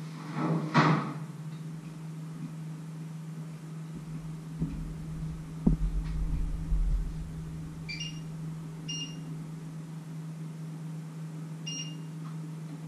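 Kitchen sounds over a steady low hum: a loud rustling clatter about a second in, a few dull thumps and a sharp knock around the middle, then three short electronic beeps from the electric stove's controls as it is adjusted.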